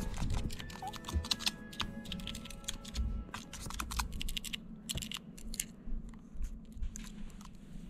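Rapid, irregular clicking and scratching at the plastic housing of a hand-held electric fabric shaver as a meerkat paws and nibbles at it. The clicks are densest in the first few seconds and thin out later.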